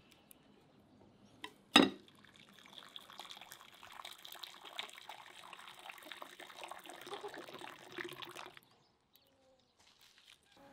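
A sharp knock a little under two seconds in, then water running and splashing into a plastic poultry drinker for about six seconds before it stops suddenly.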